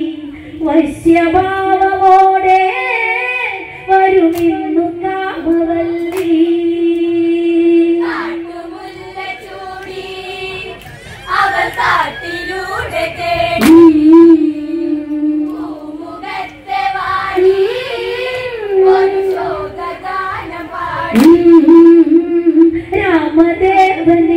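Women and girls singing a Malayalam Onamkali folk song together, with long held notes.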